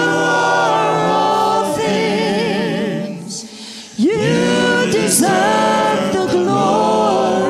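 Group of worship singers singing slow, held notes with vibrato. The sound thins out about three seconds in, then a voice slides up into a new sustained note about a second later and the singing swells back.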